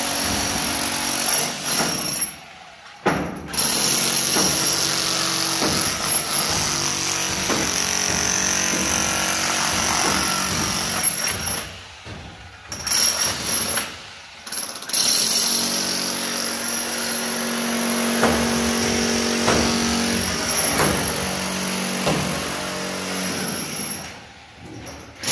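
Electric demolition hammer chiselling a trench into a concrete floor, running in long spells with a few short pauses.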